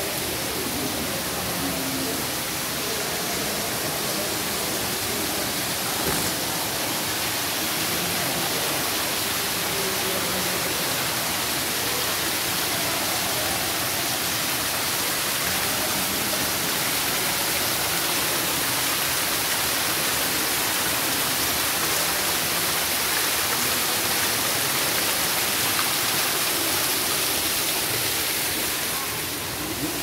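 Man-made waterfall splashing over rocks: a steady, even rush of falling water.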